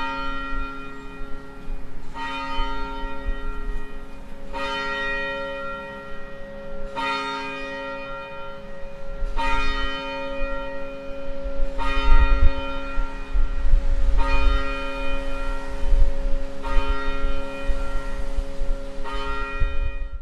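A single church bell tolling slowly, nine strokes about two and a half seconds apart, each stroke ringing on into the next. It cuts off suddenly at the end.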